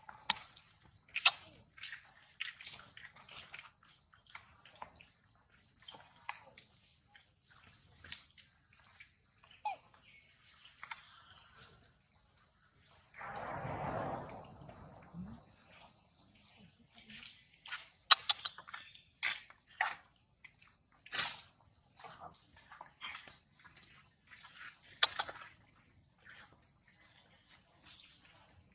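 Steady high-pitched chorus of insects, with scattered short clicks and rustles. About halfway through, a louder rustling whoosh lasts about two seconds.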